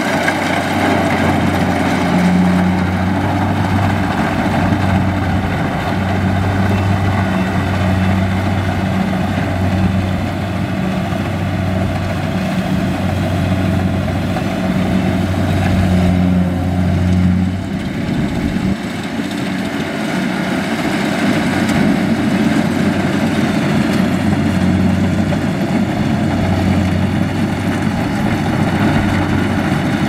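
Kubota combine harvester's diesel engine running steadily at constant speed, with a short dip in its low hum about eighteen seconds in.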